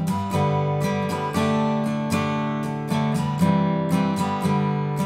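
Acoustic guitar strumming chords in a steady rhythm, without singing.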